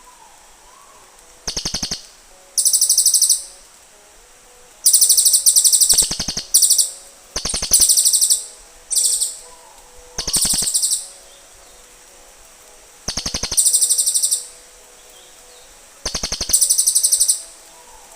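Cililin birds calling back and forth: about eight short, high-pitched, rapid trilled phrases, each half a second to a second and a half long, separated by pauses of one to three seconds.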